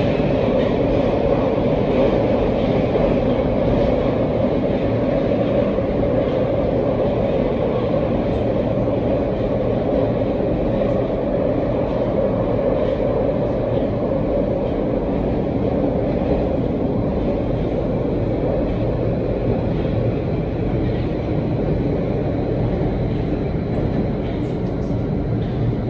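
Metro train running through a tunnel, heard from inside the car: a steady, loud rumble of wheels on rails and tunnel noise that holds even throughout.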